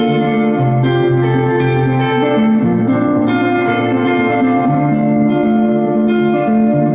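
Electric guitar played solo in a live instrumental passage: ringing, sustained chords that change about every second, with no singing.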